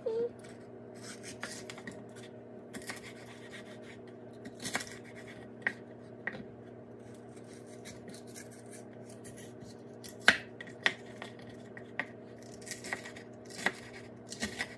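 Knife slicing green chili peppers on a wooden cutting board: irregular knocks of the blade against the board, about a dozen, spread unevenly, over a steady low hum.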